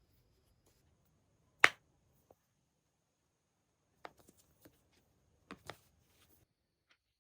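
A sharp click about a second and a half in, then a few lighter clicks and taps and two more clicks near the end: small hard objects being handled and set down in a quiet room.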